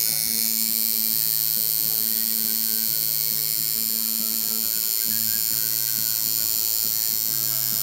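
Coil tattoo machine buzzing steadily as it lines a tattoo into the skin of a forearm, with a low hum that switches between two pitches about once a second.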